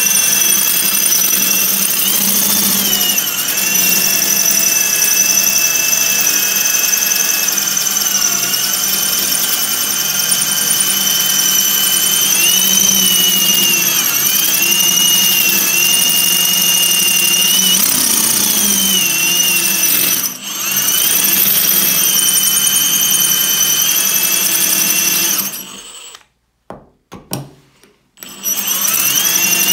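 Milwaukee drill turning a quarter-inch masonry bit into hard porcelain tile, its motor whine wavering in pitch as it bogs under the load. It cuts out briefly about two-thirds in, then stops near the end with a couple of short bursts before running again.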